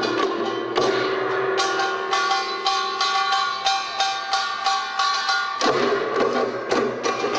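Korean pungmul percussion ensemble of janggu hourglass drums, buk barrel drums and a kkwaenggwari small gong, struck in a fast, even rhythm of roughly three to four beats a second, with metal ringing under it. About a second and a half before the end the deeper drum strokes come back in strongly.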